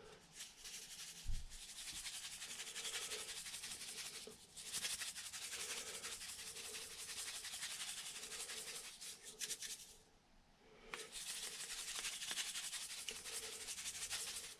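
Salt grinder grinding pink salt: a dry, gritty crackle in three long runs, with short pauses about four seconds and ten seconds in.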